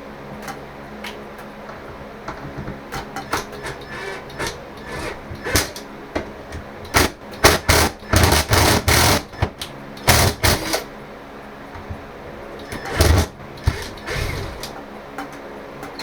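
Tools and hardware being handled and set out: scattered clicks and knocks, with a busier stretch of loud knocking and rustling around the middle and another short burst near the end.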